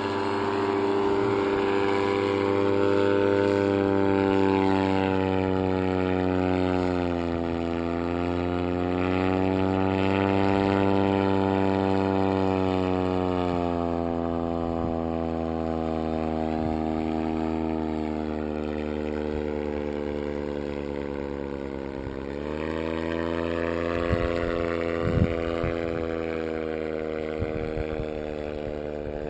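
Paramotor engine and propeller droning as the powered paraglider flies around overhead. The pitch dips briefly, sinks slowly for several seconds and then climbs sharply. A few brief thumps near the end.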